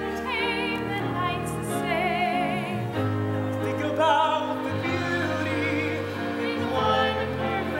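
Musical-theatre singers holding notes with vibrato over instrumental accompaniment, the pitch changing every second or so.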